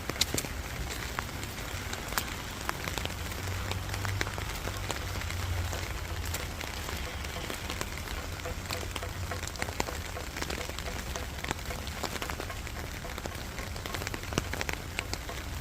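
Steady rain falling, a continuous patter with many individual drops landing as sharp ticks.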